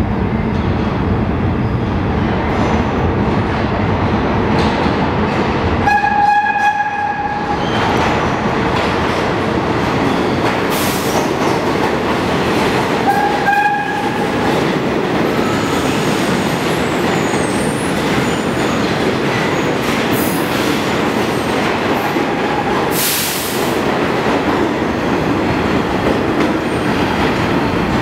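New York City subway R33/R127 refuse train running through the station, its wheels rumbling and clattering steadily. Its horn sounds two one-second blasts about seven seconds apart, with a fainter third later, and two short hisses come through.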